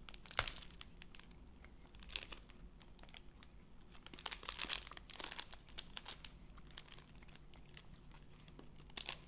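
Plastic snack sachet crinkling as it is handled, in several short bursts with pauses between them.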